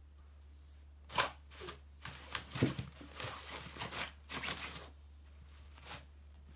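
A cat pawing and tugging at the nylon fabric of a collapsed pop-up cat tent. The fabric rustles and crinkles in a quick run of bursts from about a second in until about five seconds, with one more brief rustle near the end.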